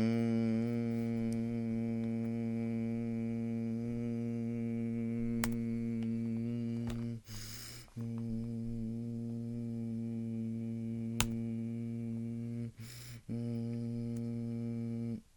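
Emergency Alert System attention signal: a steady, harsh two-tone alarm sounding for about fifteen seconds. It drops out briefly twice.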